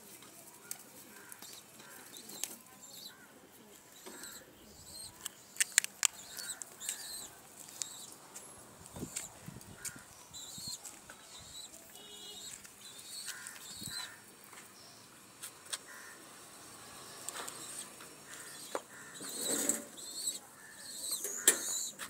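Domestic pigeons flapping their wings on the ground in short flurries, with sharp slaps that are loudest about six seconds in and again near the end. Short high chirps come and go.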